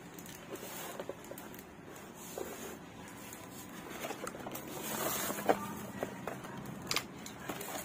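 Handling noise of a spinning fishing reel and its cardboard packaging: scattered light clicks and taps, with a louder stretch of rustling around the middle and a sharp tap about five and a half seconds in.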